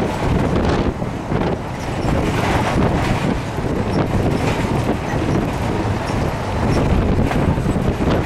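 Steady rumble of a moving vehicle, with wind on the microphone.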